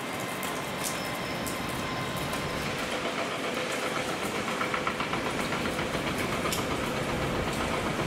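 Underfloor diesel engines of a Class 150 Sprinter diesel multiple unit running as it approaches, growing a little louder from about three seconds in, over a steady patter of rain.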